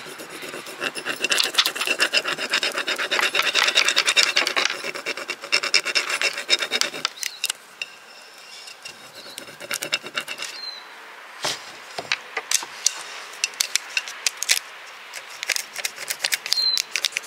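Wooden craft stick rubbed quickly back and forth over a decor transfer sheet on a mineral-painted terracotta pot, burnishing the design so it sticks to the paint. The dry scraping is fast and dense for about seven seconds, then slows to scattered strokes.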